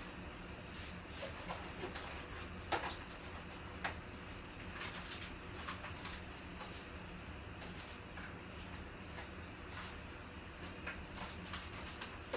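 Steady low room hum with scattered light clicks and taps, the sharpest about three seconds in.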